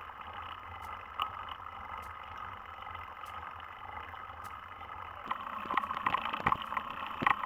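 Mountain bike riding: a steady rush of tyre and wind noise. About five seconds in it turns to irregular rattling and clattering as the bike rolls over a rough dirt track.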